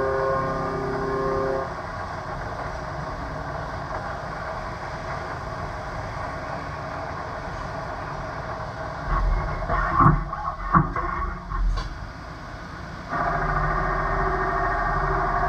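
Robotic machining cell running: a steady mechanical hum of robots and machines, with a few sharp metallic clanks about ten seconds in as the robot grippers hand the cast exhaust manifold from one robot to the other. A louder, steadier hum with a tone in it comes in about thirteen seconds in.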